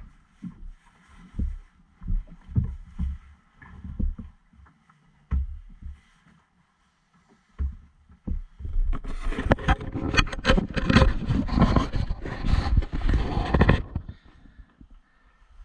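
Camera handling noise: scattered low knocks and bumps. About nine seconds in, a loud crackling, rustling rush on the microphone lasts about five seconds and then stops suddenly.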